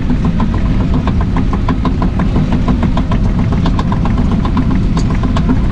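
Excavator's diesel engine running steadily: a low drone with a rapid, even ticking of about six a second.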